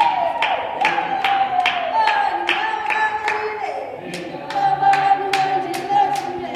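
Women's voices singing a song together unaccompanied, holding long notes with a couple of falling slides, over hand claps keeping a steady beat about twice a second.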